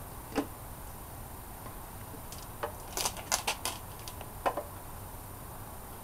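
Sharp metallic clicks and clinks of hand tools and engine parts as the last valve cover bolt comes out and the valve cover is lifted off: a single click, then a quick cluster of clinks about halfway through, and another near the end.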